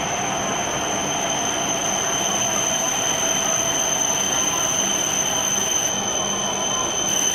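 E7-series Shinkansen train running past, a steady rumble of wheels on rail with a steady high-pitched whine over it.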